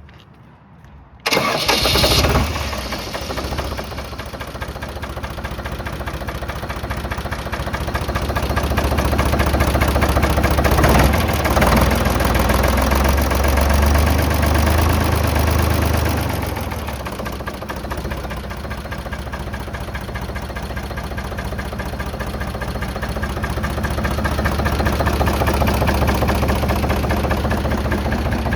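The Deutz diesel engine of a New Holland Hayliner 505 baler starts about a second in, catching at once, then runs. It speeds up for several seconds in the middle, drops back to a steady run, and speeds up again near the end.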